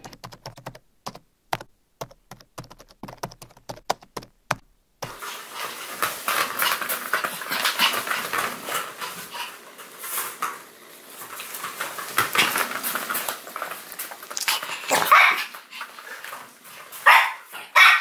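A rapid run of sharp clicks for about the first five seconds, then a Pomeranian barking and yipping, loudest in short bursts near the end.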